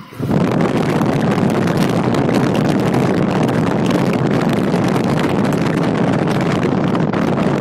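Steady, loud rush of wind and vehicle noise heard through an open window of a moving car. It starts abruptly and stays level.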